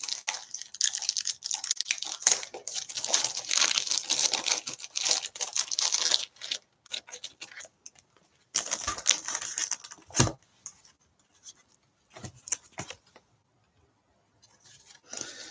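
Crinkling and rustling of plastic and paper as trading cards are handled and sorted, dense for about six seconds. A shorter burst follows, ending in a single knock on the table about ten seconds in, then a few brief rustles.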